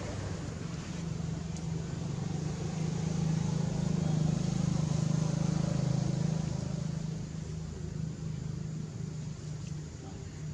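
Low, steady engine hum from an unseen motor vehicle, swelling louder for a few seconds in the middle and then fading back.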